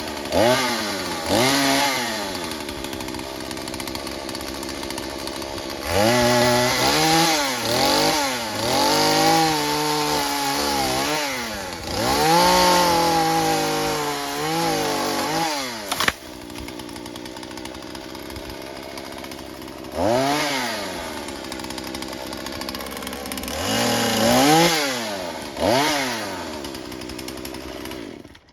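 Chainsaw revving up and down again and again, held at high, labouring revs for several seconds while cutting through a thick tree limb, and dropping back to idle between revs. A single sharp crack comes about halfway through, and the saw cuts off suddenly at the end.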